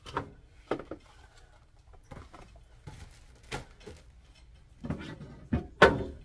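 Plastic food containers and refrigerator shelf parts knocking and clattering as they are handled and lifted out of a refrigerator, in a series of separate knocks with quiet gaps. The loudest knock comes near the end.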